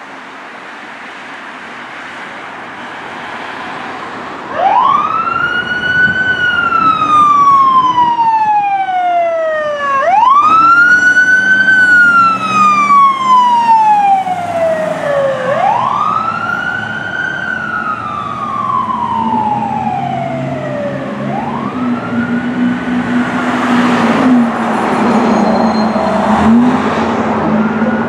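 Electronic siren of a fire department Chevrolet Suburban command vehicle sounding its wail, the signal of a unit responding to an emergency. Traffic noise at first, then four wail cycles start about four and a half seconds in: each rises quickly and falls slowly over about five seconds, and the last is fainter as the vehicle drives away.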